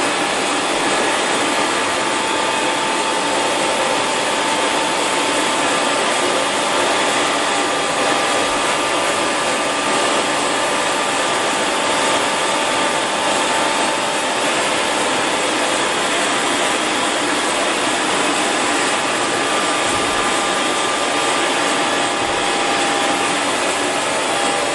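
Bokö milling machine running under power: a steady mechanical running noise from its spindle drive and gearing, with a faint steady whine throughout.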